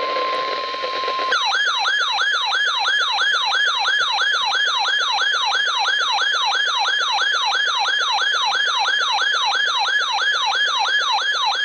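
For about the first second, a steady weather-radio alert tone with radio hiss. It then gives way to a loud electronic siren-style alert, a falling whoop repeated about two and a half times a second, which cuts off suddenly.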